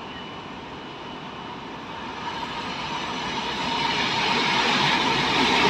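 Diesel locomotive approaching along the track, its engine and running noise growing steadily louder over the last three seconds or so as it nears.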